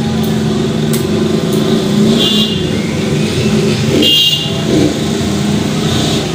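Street traffic with engines running steadily, and two short high-pitched horn honks, about two seconds in and about four seconds in. A few light clicks early on.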